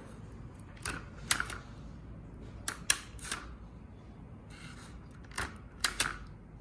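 Handheld tapener (plant tying tool) clicking as its spring-loaded metal jaws and tape feed are worked by hand: about eight short, sharp clicks in small irregular groups.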